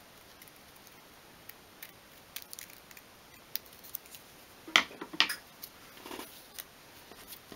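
Scissors snipping through a small piece of paper, a series of short, sharp cuts with quiet gaps between them. A couple of louder clicks come about five seconds in.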